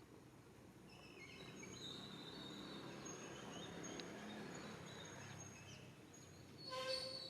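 Faint high-pitched chirping animal calls, many short thin notes through the middle, then one short, louder call with a clear pitch near the end.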